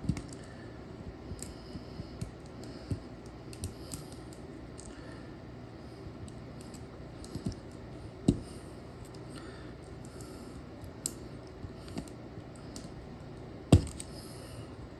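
Small scattered metal clicks and scrapes of a tool prying a roll pin up out of a Datsun 280ZX ignition lock cylinder, with a sharper click about eight seconds in and the loudest knock near the end.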